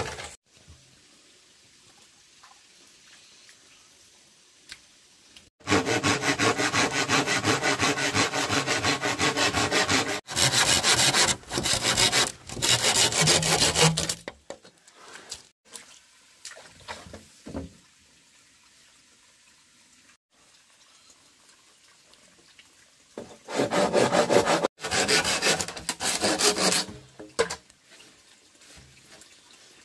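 Hand pruning saw cutting through a green bamboo pole with quick back-and-forth strokes. The sawing starts about five seconds in and runs for roughly eight seconds with brief breaks, then a second shorter bout comes near the end.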